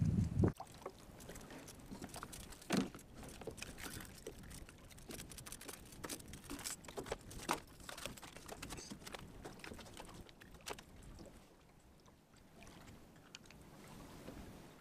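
A just-landed speckled trout being handled and unhooked in a kayak: scattered light clicks, taps and drips of water from the fish and rig, with a louder knock about three seconds in.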